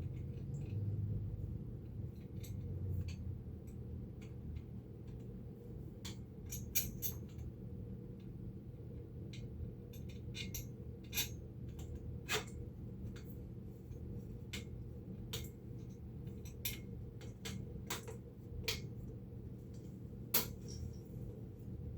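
Scattered light clicks and clinks of metal stand parts and hand tools being handled and fastened, over a steady low hum.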